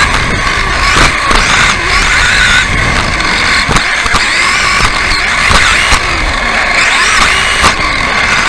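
Onboard sound of an electric RC off-road buggy racing: its motor and gears whine, rising and falling in pitch with the throttle. Sharp knocks come several times from the chassis and suspension as it lands and hits the track.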